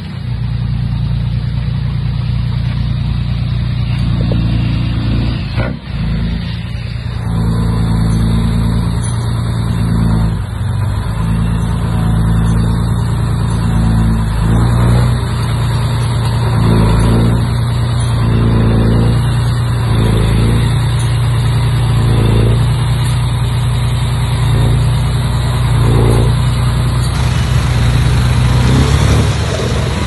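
Diesel engine of a Komatsu D31P crawler bulldozer running steadily at working revs, with a short pulse in the sound every second or two through the middle of the stretch.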